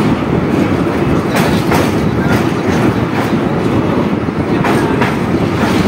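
Indian Railways ICF passenger coach running along the line: a steady loud rumble and rush of air, with the wheels clacking over rail joints every so often.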